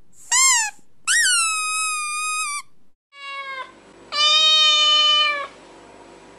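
A series of four high-pitched squeaky calls. The first is short and arching, then comes a longer one that rises and holds, a short rising one, and a long steady one near the end. They are played for a dog to react to.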